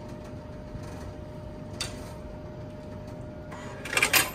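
A refrigerated vending machine hums steadily with a faint constant whine. Near the end comes a short burst of clattering, rattling noise, the loudest sound here.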